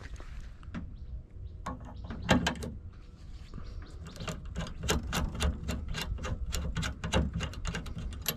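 Metal clicking and rattling from a spring-base antenna mount being gripped and swivelled on its truck mount: one loud click about two seconds in, then a quick run of clicks through the second half, over a low rumble.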